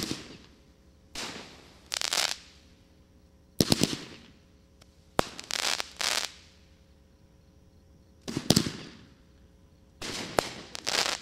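AAH Fireworks 'The Castle' 500-gram aerial repeater cake firing its shots: a string of sharp bangs, each trailed by a short hiss, coming in irregular clusters a second or two apart.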